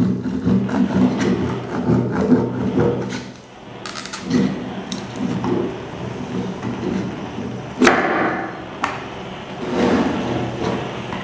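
Machete-style blade hacking and scraping at a compact disc held on a round board, a run of rough, uneven knocks and scrapes. Late on come two sharp, loud strikes about a second apart.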